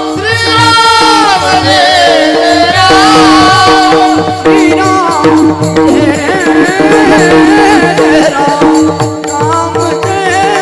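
Devotional bhajan music: an ornamented, wavering melody over a steady held drone and a repeating hand-drum beat, with rattling percussion growing busier towards the end.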